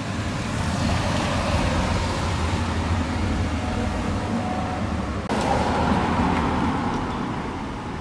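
Road traffic passing: a steady rushing noise that swells within the first second, rises again abruptly about five seconds in, and eases off near the end.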